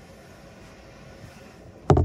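Faint room hum, then near the end a sudden loud clatter of knocks and rubbing from the camera being handled and moved.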